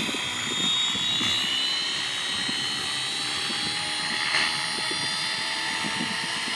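Align T-Rex 450L Dominator electric RC helicopter spooling up on the ground: a high motor and rotor whine rising slowly in pitch as the head speed builds, with a brief rush of noise about four seconds in.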